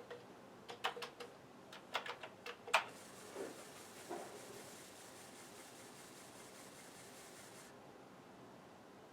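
A quick, irregular run of about ten sharp clicks and clacks over the first three seconds, then two softer knocks and a faint steady hiss that cuts off suddenly near the end.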